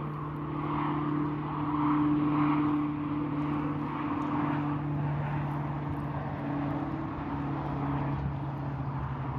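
Steady engine drone: an even low hum that swells a little about two seconds in, then holds level.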